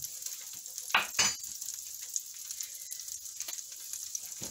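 Chopped onions and bell peppers sizzling in oil in a frying pan, a steady hiss. Two sharp knocks come about a second in.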